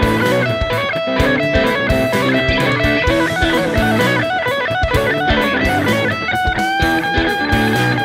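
Fender Roasted Ash '52 Telecaster electric guitar played through an amp in several layered parts at once: picked and strummed chords under a moving line of notes. About three-quarters of the way through, one long held lead note rings over the rest.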